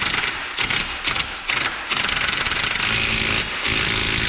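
DeWalt cordless impact wrench hammering a front-suspension nut tight on a truck's spindle, a loud rapid rattle of impacts with a motor whine under it.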